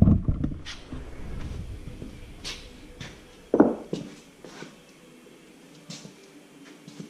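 Hand tools being handled: scattered light metal clicks and taps, with one louder knock about three and a half seconds in.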